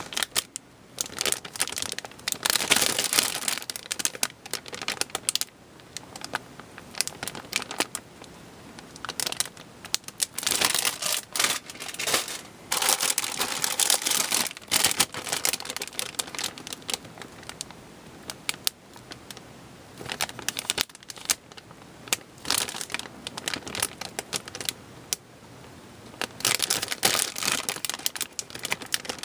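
Clear plastic bags holding model-kit parts runners crinkling as they are handled. The crinkling comes in irregular bursts with quieter gaps between.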